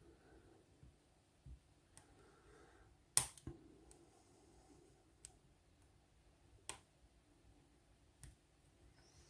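Faint, scattered sharp metallic clicks of a hook pick and tension wrench working the security pins of a lock cylinder held in a false set, about seven in all, the loudest a little after three seconds.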